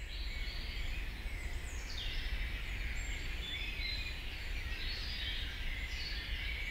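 Woodland ambience: many small birds chirping and singing in short rising and falling calls, over a low steady rumble.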